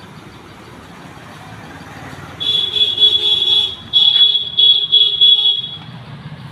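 A motorcycle's electric horn sounds one long blast about two seconds in, then a quick run of four or five short toots.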